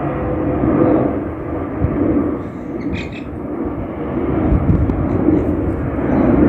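Boeing 717-200 airliner's twin Rolls-Royce BR715 turbofan engines, loud and steady, as the jet climbs out after takeoff.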